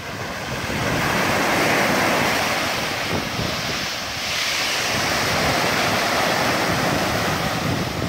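Sea surf breaking and washing up a beach in two swells, the first building about a second in and the second about four seconds in.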